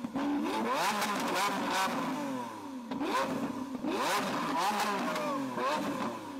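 Lamborghini Aventador V12 revved repeatedly while stationary, the engine note climbing and dropping about six times, with sharp exhaust bangs at the tops of the revs.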